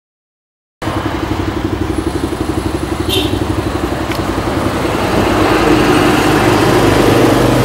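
Motorcycle engine idling steadily with a fast, even pulse, cutting in abruptly just under a second in and getting a little louder toward the end. A couple of light clicks about three and four seconds in.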